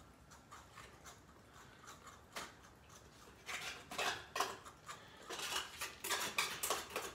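Clinks and scrapes of a utensil, a can and cat bowls being handled as canned cat food is dished out. The clinks are sparse at first and turn busier and louder over the second half.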